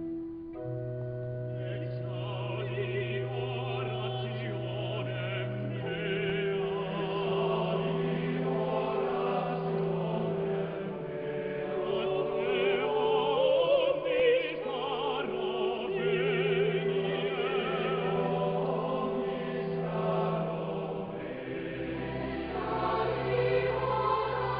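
Slow choral music: voices singing with vibrato over long held low notes that change every few seconds.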